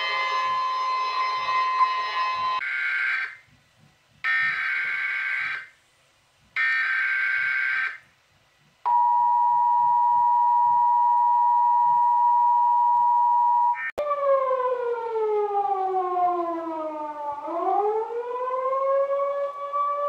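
Chilean earthquake emergency alert tones: a harsh, many-toned alert blaring, breaking into three separate blasts a few seconds in. About nine seconds in, a steady two-note alert tone takes over, then near the end a siren-like tone glides down and back up.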